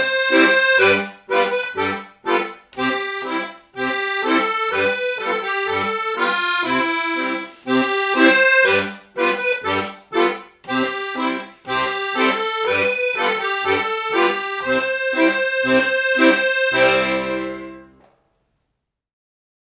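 Accordion playing a simple Italian folk tune, the melody over a left-hand accompaniment of bass notes alternating with chords. It ends on a held final chord that stops about 18 seconds in.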